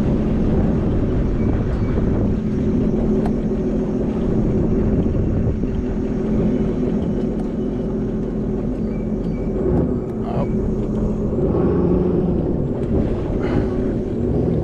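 Jet ski engine running steadily, a continuous drone.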